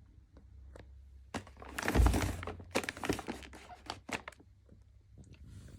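A boxed firework cake being handled: a heavy thunk about two seconds in, then a run of smaller knocks and rustles.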